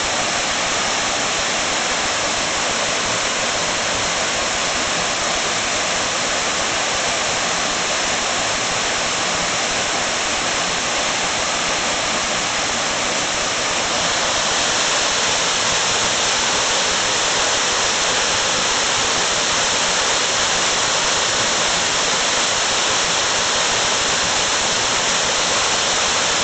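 Waterfall plunging over a rock ledge into a pool after heavy rain: a steady rush of falling water that grows slightly louder about halfway through.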